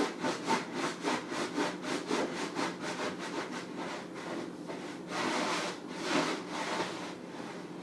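Wet sponge scrubbing the inside of a fridge: quick back-and-forth rubbing strokes, about five a second, easing off into a few longer strokes near the end.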